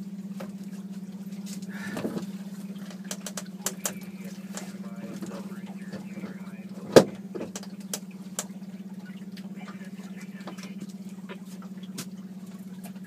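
Boat's outboard motor running with a steady low hum, with scattered clicks and knocks of handling on the boat and one sharp knock about seven seconds in.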